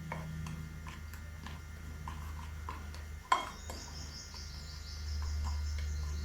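A spoon stirring dry gram flour, rice flour and spices in a bowl, clicking against the bowl about twice a second, with one sharper clink a little past halfway. A steady hiss joins just after the clink.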